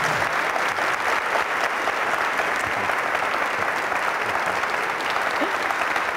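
A large audience applauding: many people clapping together in a steady, dense patter.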